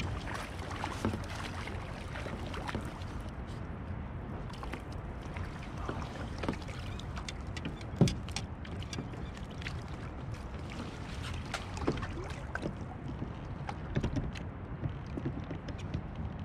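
Steady wind and water noise around a fishing kayak, with scattered small clicks and knocks of gear being handled against the hull and one sharper knock about halfway through.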